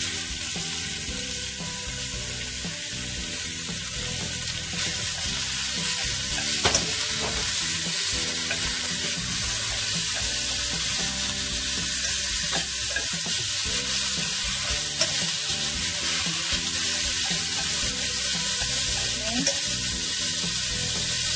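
Marinated pork sizzling loudly in hot oil in a stainless steel pot, starting suddenly as the meat hits the pan. It is stirred with chopsticks, with a few sharp clicks against the pot.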